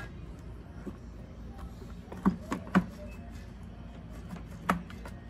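A few sharp clunks and knocks as a chainsaw and a T-handle scrench are handled: three close together about halfway and one near the end, over a steady low hum.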